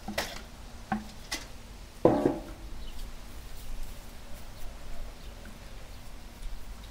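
Handling noises from aluminium basins of raw chicken wings on a wooden table: a few light knocks, then a louder clunk about two seconds in, followed by a low steady background.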